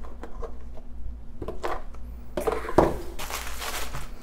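Light taps and clicks as a cardboard kit box is handled, then a bag rustling for about a second and a half as it is drawn out of the box, with one sharp knock near the start of the rustling.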